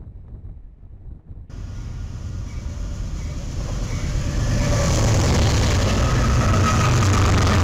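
A diesel locomotive in BNSF paint approaches and passes close by, engine rumble and wheel noise building over a few seconds and then staying loud. Before it, about a second and a half of wind noise on the microphone.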